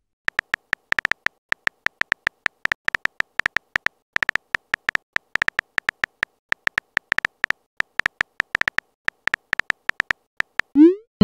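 Phone-keyboard typing sound effect: a fast, irregular run of short, sharp clicks, several a second. Near the end a short rising swoosh, like a message being sent.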